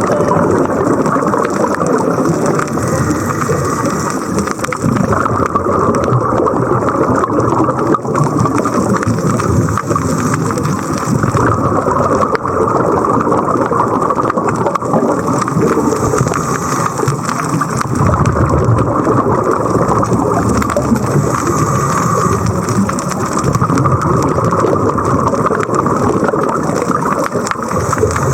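Loud, steady rushing water noise.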